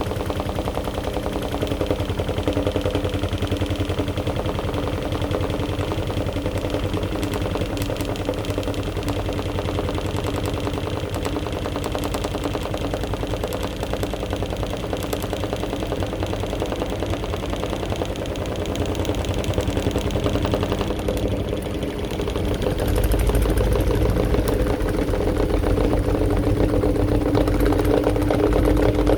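AQUA AQW-DX12M front-loading drum washing machine running its spin cycle, a steady motor hum with a low rumble, picked up through the machine's top panel. The rumble gets louder about three-quarters of the way through as the spin builds.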